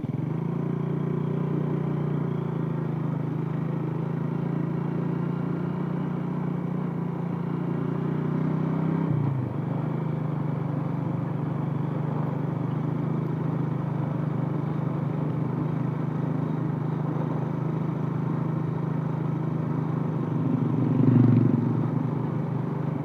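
Small motorcycle engine running steadily while riding over a rough dirt track. Its pitch dips briefly about nine seconds in, as if the throttle eased, and settles back to a steady hum; near the end there is a short louder swell.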